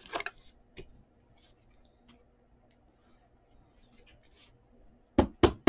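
Trading cards being handled: faint rustling and light clicks of cards, then a few loud, sharp clicks close together near the end.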